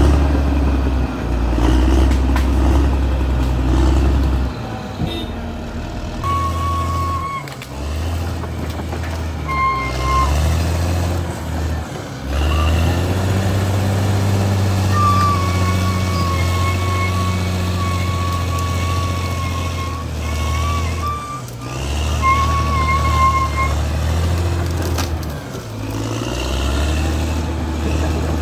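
Caterpillar D6R XL bulldozer's diesel engine running under load as it pushes and cuts soil, the drone changing several times. A wavering high squeal comes and goes over it, longest in the middle.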